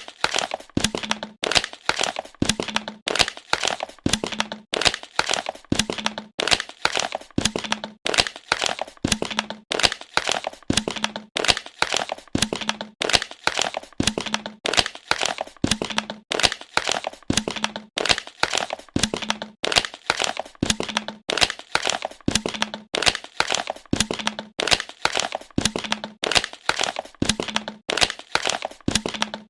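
Plastic bottle crackling as it is squeezed and crumpled, a run of sharp cracks and crinkles repeating in a steady, even rhythm.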